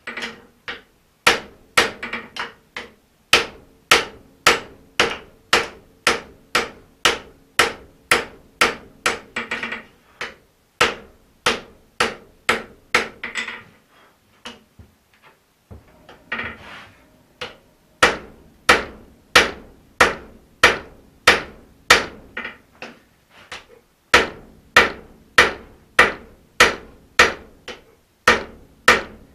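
Hand hammer striking red-hot axe-head steel on an anvil in a steady rhythm of about two blows a second, with the anvil ringing between blows. The blows stop for about two seconds around the middle, then resume. This is hand-forging a felling axe head to its final shape.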